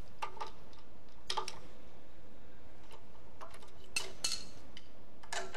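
Scattered sharp metallic clicks and clinks of a socket wrench and a sprocket holding tool on a camshaft sprocket bolt as it is loosened, over a steady faint hiss.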